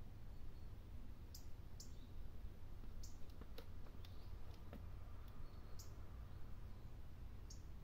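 Faint scattered short, sharp clicks and high chirps, about half a dozen spread irregularly, over a steady low rumble.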